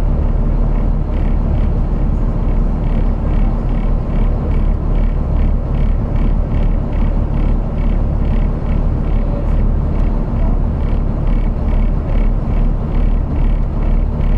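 A vehicle running with a steady, loud low rumble and a fast regular pulsing on top, about three beats a second.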